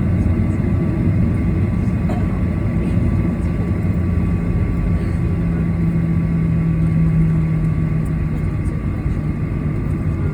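Riding lawn mower engine running steadily, with a steady hum holding for several seconds through the middle.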